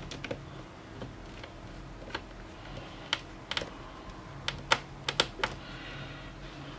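About a dozen light, sharp, irregular clicks and taps from hands working at the plastic screen lid of a laptop while the screen's mounting screws are fitted, the loudest bunched together in the second half.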